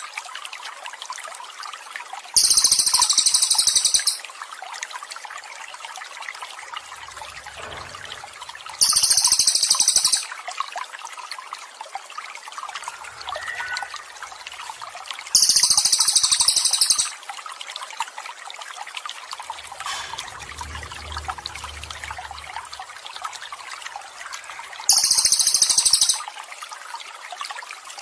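Water trickling steadily, with a loud, very high trilling bird call that repeats four times, each phrase about a second and a half long and several seconds apart.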